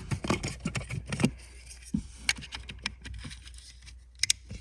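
Irregular small clicks, taps and scrapes of a plastic car wiring connector and its wires being handled, with two sharper clicks near the end.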